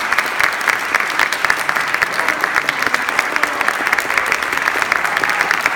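Audience applauding steadily: a dense, continuous patter of many hands clapping.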